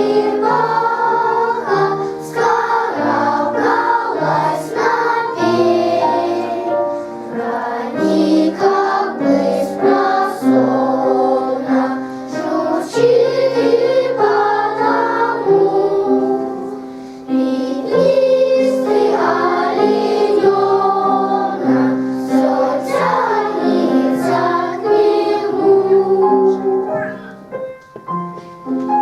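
Children's choir of young schoolchildren singing a song together with piano accompaniment. The voices stop near the end, leaving the piano playing on.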